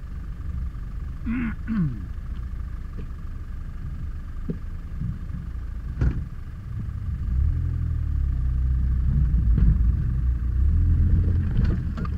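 A 4x4's engine running at low speed off-road, heard from inside the cab. It gets louder about seven seconds in, and there is a single sharp knock about six seconds in.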